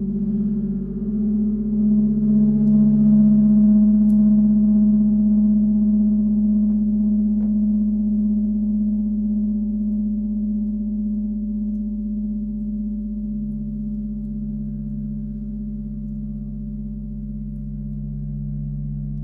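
Tibetan gongs ringing in a long, sustained drone of several low tones. The drone swells over the first few seconds, then slowly fades, with a slow pulsing beat in its lowest tone.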